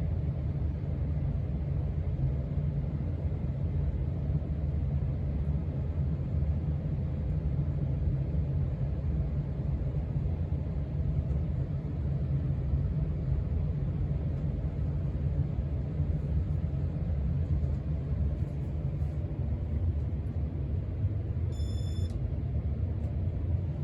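A 1989 Casablanca Four Seasons five-blade ceiling fan running at speed, giving a steady low rumble of motor and moving air. Near the end there is one short electronic beep, the kind the fan's control board gives when the speed is changed.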